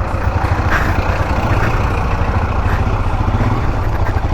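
Motorcycle engine running steadily, a low, even pulsing.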